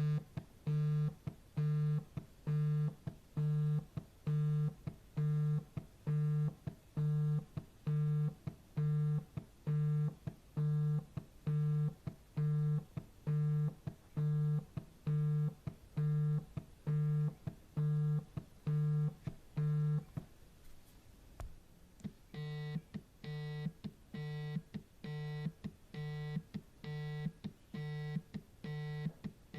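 Mobile phone vibrating: a steady low buzz pulsing on and off a little more than once a second. After a short pause about twenty seconds in, it changes to a different vibration pattern of shorter, brighter buzzes.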